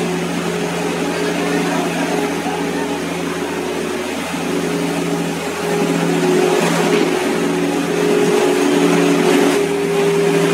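Steady drone of a small engine on concrete-floor machinery, holding one constant pitch, growing a little louder about six seconds in.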